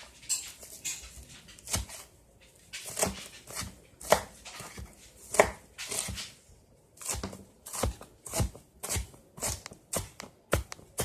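Knife chopping vegetables on a cutting board: a run of sharp strikes, spaced unevenly at first, then coming faster and more evenly, about two a second, in the second half.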